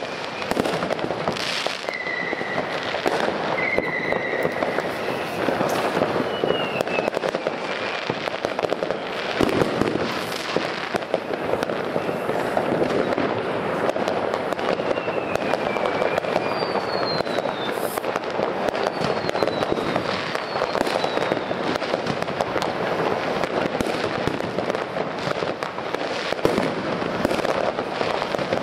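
Dense, continuous firework noise: steady crackling and popping with many sharp bangs, and several short falling whistles.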